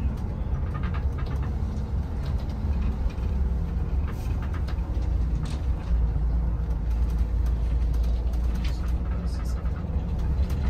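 Shuttle bus driving: a steady low engine and road rumble, with scattered faint clicks and rattles.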